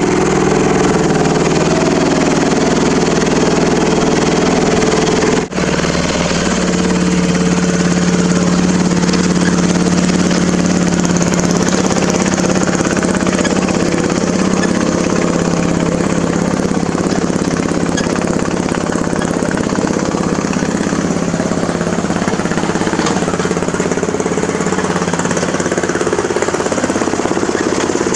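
Poulan riding mower's engine running steadily and loud through a custom exhaust as the mower drives through flood water, with water splashing off the tires. The sound drops out for an instant about five seconds in, then carries on.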